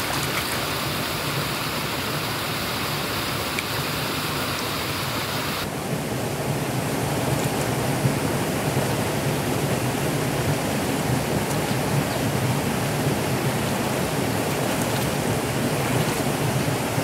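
Steady rush of flowing river water, with a change in its tone about six seconds in.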